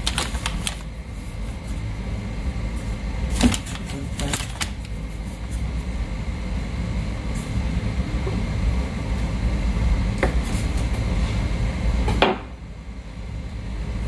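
Kitchen handling noises during food prep: a few sharp clicks and knocks, the loudest near the end, over a steady low rumble.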